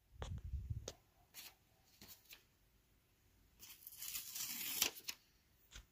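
Paper pages of a book being handled: a soft low thump near the start, a few light ticks, then a brief rustle of paper about four seconds in.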